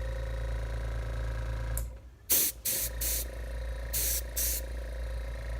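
Small airbrush compressor running with a steady hum, while the airbrush sprays in short hissing bursts, about five of them from about two seconds in.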